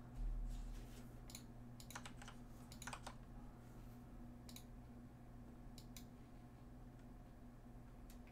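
A few scattered keystrokes on a computer keyboard, in small clusters of clicks, over a steady low electrical hum. A dull low bump comes just at the start.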